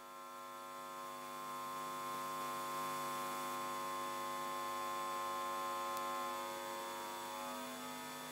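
Faint steady electrical hum of several held tones from a stage sound system, growing a little louder over the first few seconds and easing off near the end.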